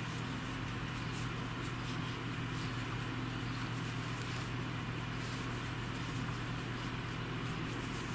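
Steady low background hum, with faint soft ticks from a metal crochet hook working cotton yarn.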